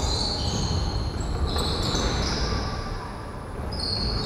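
Sounds of a basketball game on a wooden gym floor: several high sneaker squeaks, some shifting in pitch, over a low rumble, echoing in a large hall.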